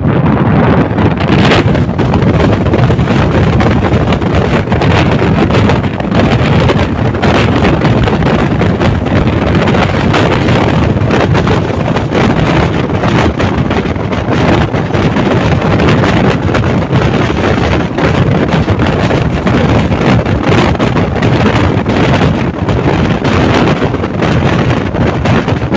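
Wind buffeting the microphone held out of a moving passenger train, over the steady running rumble of the train on the track.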